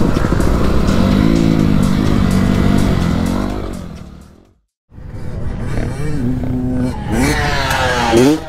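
Dirt bike engine running under way with rushing wind noise, fading out about four and a half seconds in. After a short silence another dirt bike engine runs and then revs hard, its pitch rising steeply near the end.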